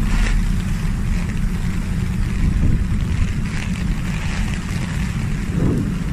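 Strong gusting wind buffeting the microphone with a heavy low rumble, over the hiss of heavy rain.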